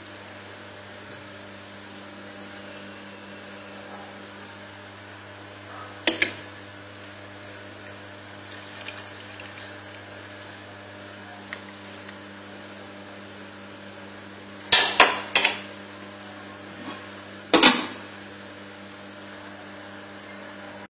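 Sharp clinks of a metal ladle against a cooking pan over a steady low hum. There is a pair about six seconds in, a quick run of three about three-quarters of the way through, and one more shortly after.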